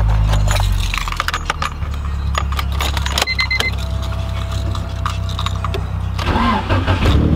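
Keys jangling and clicking at the ignition of a Honda Civic over a steady low engine hum, with a short beeping chime about three seconds in as the S2000 gauge cluster powers up, followed by a thin steady tone for about two seconds.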